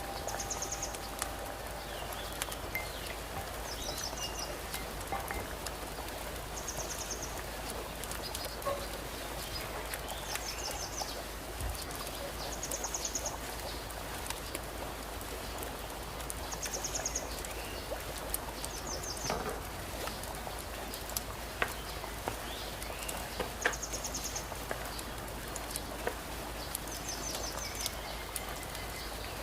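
A bird repeating a short, high-pitched trill every few seconds, over a steady background hiss with scattered faint clicks.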